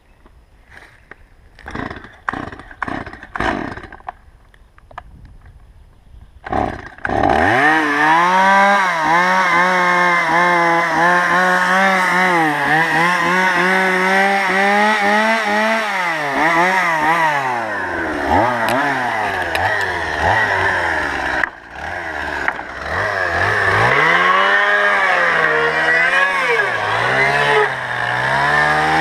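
Petrol chainsaw being pull-started: a series of short pulls on the starter cord, then the engine catches about seven seconds in and runs at high revs. Its pitch sags and recovers again and again as it bucks slab-wood offcuts.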